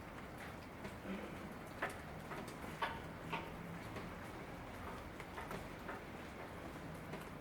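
Rain falling steadily, with irregular single drops ticking sharply on a hard surface, a few of them louder, around two and three seconds in.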